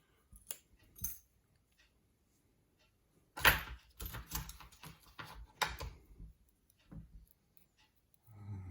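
Small metal lock parts clicking and clattering, with a louder rattle about three and a half seconds in and scattered clicks after it, as a pin-tumbler lock is worked on to take out its top pins and springs.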